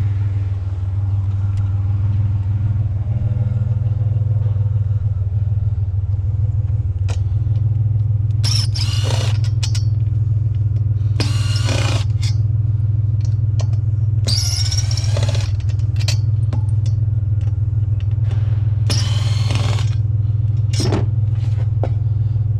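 Steady low engine-like idle hum throughout, with scattered clicks and four short high squealing bursts of about a second each, from metal parts being worked loose as a table top is taken off.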